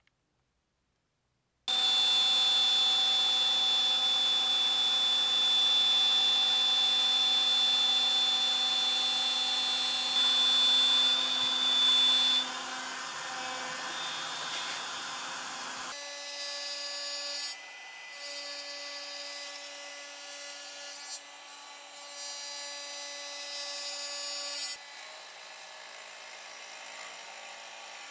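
CNC router spindle running and milling slots in a block of dense carob wood with an end mill. It is a steady, high-pitched machine whine that starts about two seconds in. Around sixteen seconds it gives way to a quieter, lower steady hum with a few brief breaks.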